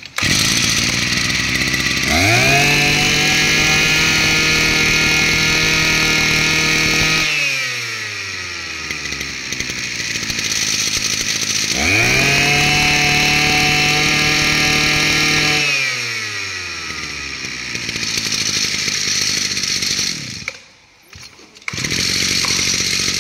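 Mitsubishi TL33 backpack brush cutter's 33cc two-stroke engine running. It is revved up to full throttle twice, holding high for about five and four seconds, and each time it slides back down to idle. Near the end it stops for about a second, then runs again.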